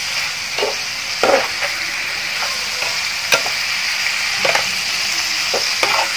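Baby corn, mushrooms and meat sizzling in hot oil in a frying pan while a spatula stirs and tosses them, with a handful of short scrapes and knocks of the spatula against the pan at irregular moments.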